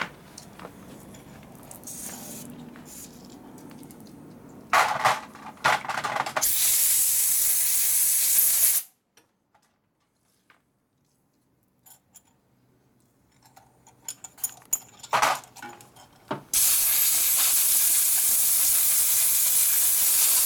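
Loud, steady hiss of compressed air blowing grease off a transmission mainshaft, in two blasts of about two and four seconds. Each blast is preceded by a few sharp clicks of handling.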